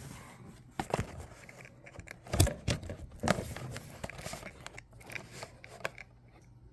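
Packaging being handled: irregular rustling and crinkling with scattered knocks, the sharpest about two and a half and three and a half seconds in.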